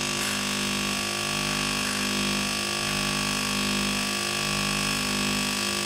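Philips automatic espresso machine's pump running with a steady buzz during AquaClean water-filter activation, pushing water through the freshly installed filter and out of the hot-water spout into a mug.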